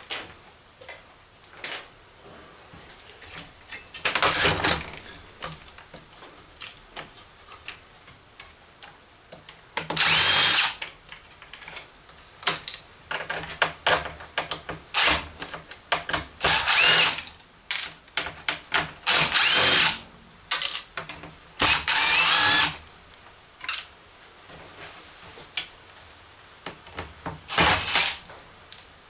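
Cordless drill-driver backing screws out of a large monitor's metal chassis in short runs of about a second each, with short blips and clicks between.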